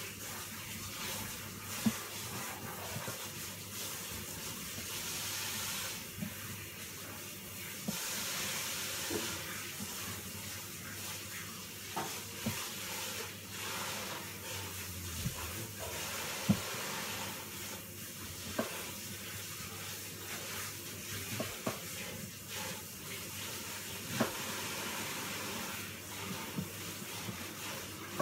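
Steady hissing kitchen background with scattered sharp knocks of a knife striking a plastic cutting board as green apples are cut.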